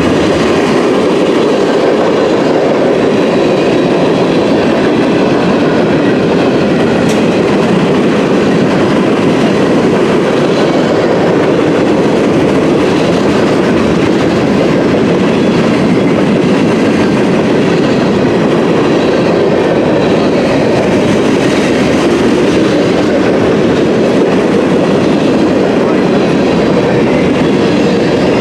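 Mixed freight train's tank cars and covered hoppers rolling past at close range: a steady, loud rumble and rattle of steel wheels on the rails.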